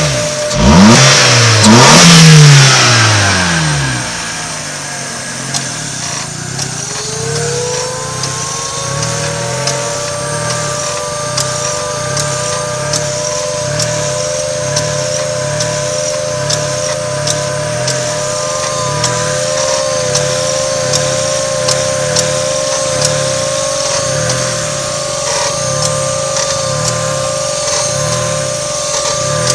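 1995 Mazda MX-3 engine revved briefly in the first few seconds, then idling with a click about once a second that comes from the air-conditioning system. With each click the idle drops sharply and jumps back up, so the engine note pulses in time with the clicks. A steady whine comes in and rises in pitch about seven seconds in.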